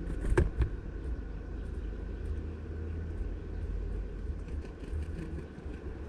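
A great tit landing on a plastic-bottle bird feeder: two sharp knocks about half a second in, then faint scattered ticks, over a steady low rumble of distant traffic.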